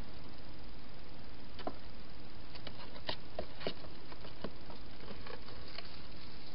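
Wild hedgehog moving about in a clear plastic feeding-station box: a scattering of small sharp clicks and taps, most of them in the middle of the stretch, over a steady hiss.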